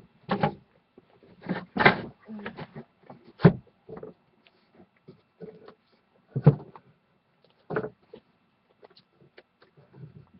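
Wooden shelf boards knocking and clacking as they are handled and pushed into place: a string of sharp wooden knocks a second or more apart, with lighter clicks between.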